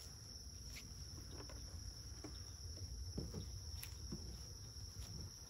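Night chorus of crickets: a steady, high-pitched trill throughout, with a few faint knocks and scrapes from beehive boxes and frames being handled, the loudest about three seconds in.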